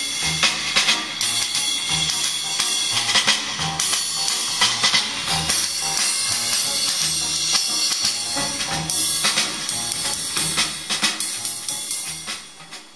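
Recorded music with a steady drum beat, played through a stereo system fed by a Sansui SC-1110 cassette deck. It fades down near the end as the deck's input level knob is turned.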